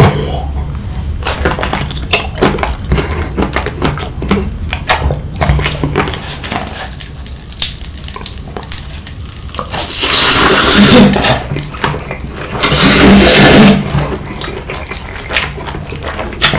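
Close-miked eating sounds: wet chewing and mouth clicks on a pink gummy jelly, then two long, loud slurps of spicy carbonara noodles about ten and thirteen seconds in, followed by more chewing.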